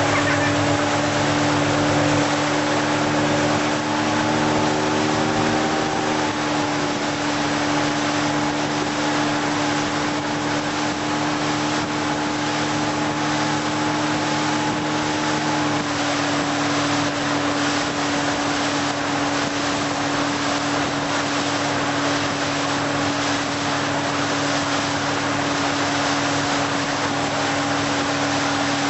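Tow boat's engine running at a steady towing speed, a constant drone over the hiss of water and wind. The pitch wavers slightly in the first few seconds, then holds.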